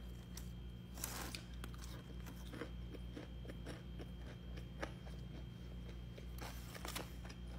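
A person biting into and chewing a breaded fried piece of food close to the microphone: soft crunching and small mouth clicks, with one louder bite about a second in.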